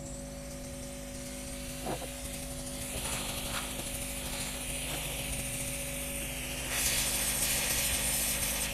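Hot air rework station blowing on a circuit board to desolder a faulty power IC: a steady fan hum and air hiss, with a few light ticks, the hiss growing louder about seven seconds in.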